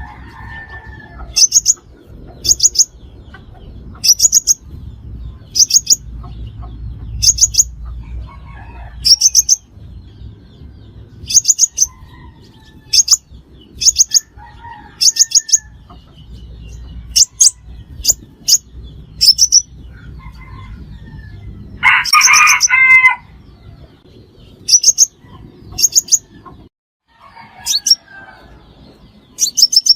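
Sunbird calls: short, very high trills of three or four rapid notes, repeated about once a second, with one louder, lower call about 22 seconds in. This is a decoy call of the kind used to lure sunbirds to a trap.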